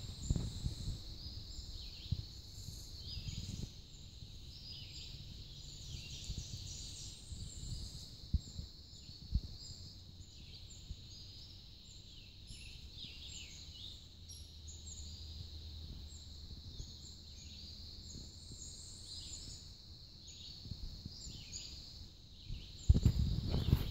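Outdoor ambience with many small birds chirping throughout, over a faint steady high tone and a low rumble, with a couple of sharp knocks about eight and nine seconds in.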